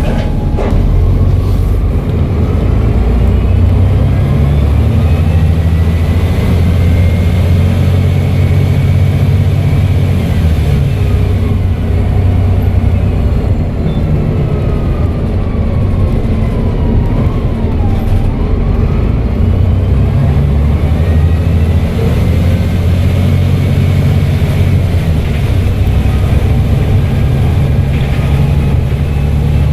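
Volvo B7TL double-decker bus's turbocharged diesel engine working as the bus drives, speeding up and easing off several times. A turbo whistle rises and falls over the engine note.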